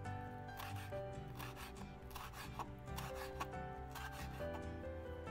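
Kitchen knife slicing chili peppers into strips on a cutting board, cuts coming irregularly about every half second, over steady background music.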